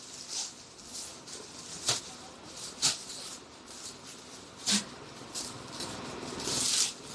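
Clothing being handled: soft rustling with a few sharp clicks about two, three and nearly five seconds in, and a longer rustle near the end.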